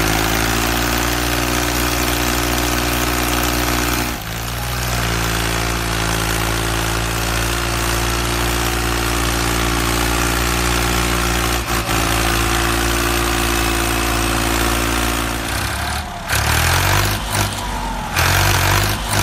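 An engine idling steadily, with a brief dip about four seconds in. From about sixteen seconds it becomes uneven and changing.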